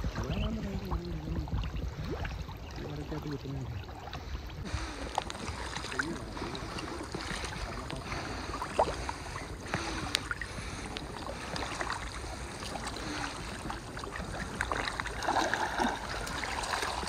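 Water sloshing and splashing as men wade through waist-deep water hauling a fishing net. Faint voices are heard in the first few seconds, and the splashing grows louder near the end.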